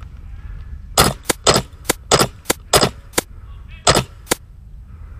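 Gas blowback airsoft DMR firing about ten quick semi-automatic shots in a burst of unevenly spaced trigger pulls, starting about a second in and stopping a second before the end.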